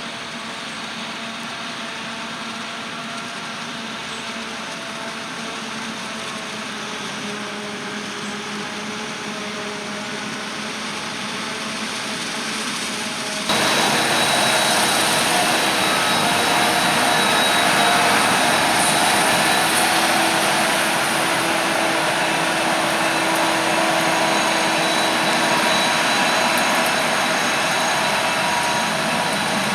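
Heavy farm machinery running steadily, engine noise with a constant whine and hum, as from the forage harvester and tractors at work in the field. It gets suddenly louder about 13 seconds in and stays at that level.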